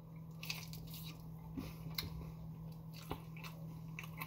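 A person chewing a mouthful of burger close to the microphone: soft wet smacks and clicks every second or so, over a faint steady low hum.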